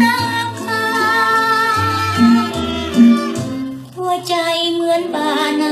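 Old Thai luk thung song recording: a woman singing with violins and band accompaniment.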